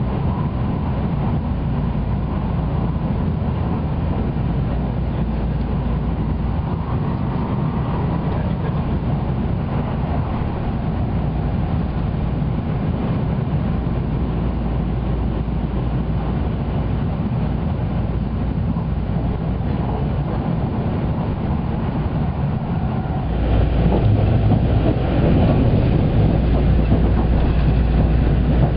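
Running noise of the Haruka limited express electric train heard inside the passenger car: a steady low rumble of wheels on rail, which gets louder and rougher about 23 seconds in.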